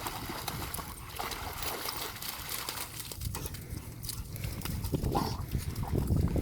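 Cane Corso dogs growling and scuffling as they tussle, growing louder over the last second or so.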